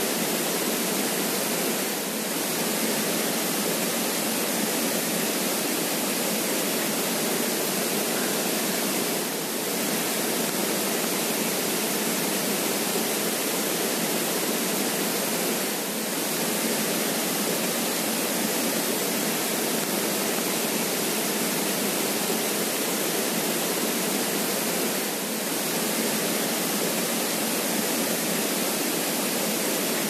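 Creek water running steadily, an even rushing hiss with little bass, dipping briefly in level four times.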